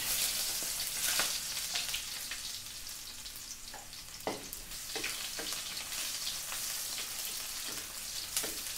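Sliced red onion and ginger sizzling in hot cooking oil in a wok, starting suddenly as they drop into the oil and carrying on as a steady hiss. A wooden slotted spatula stirs them, with a few short knocks and scrapes against the pan.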